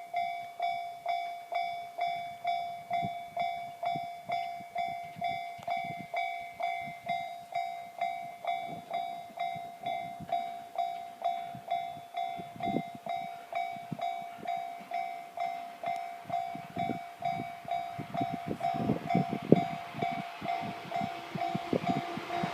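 Japanese level-crossing warning bell ringing steadily, about two strikes a second. A Shinano Railway 115 series electric train's low rumble and clatter grows in the last few seconds as it approaches.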